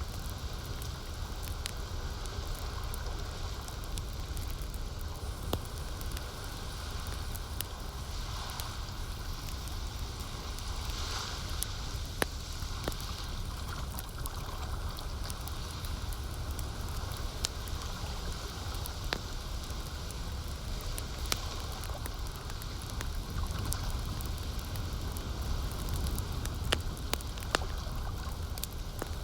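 Campfire crackling, with sharp pops every few seconds, over a steady low wash of lake water.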